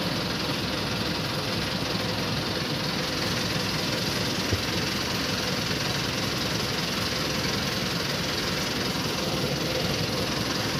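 Outrigger fishing boat's engine running steadily, an even mechanical drone.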